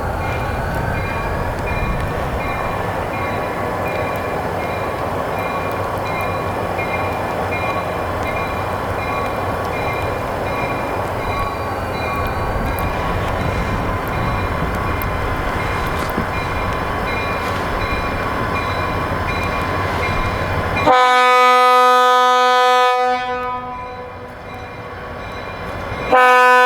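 EMD GP40 diesel locomotive running steadily, its 645 turbocharged V16 with a faint whine that rises, dips and rises again, under the noise of the moving train. About 21 seconds in the sound is cut abruptly by a loud, clean held chord like a horn. It fades out after a couple of seconds and comes back just before the end.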